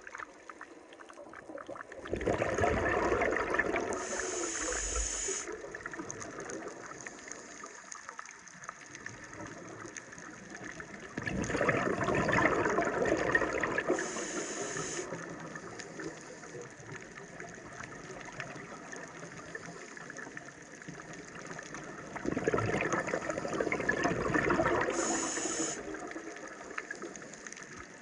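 Underwater scuba breathing through a regulator, three breaths about ten seconds apart. Each breath is a rush of exhaled bubbles lasting a few seconds, followed by a brief high hiss of inhaling.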